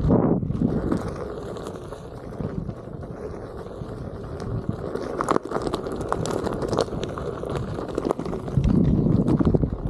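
Onewheel's tyre rolling over a dirt trail in the woods: a steady rough rumble, with scattered sharp crackles of twigs and leaves crunching under the wheel. It grows louder and rougher near the end.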